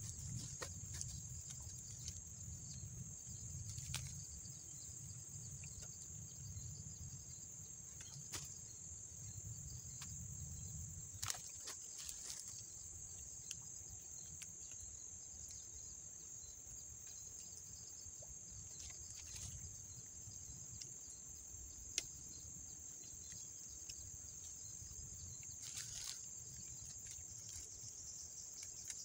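Insects chirring in a steady high-pitched drone, with a few scattered small clicks and rustles. A low rumble underneath stops about eleven seconds in.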